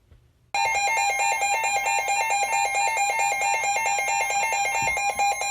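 Emergency Alert System two-tone attention signal: a loud, steady alert tone that starts abruptly about half a second in, heralding a National Weather Service flash flood warning.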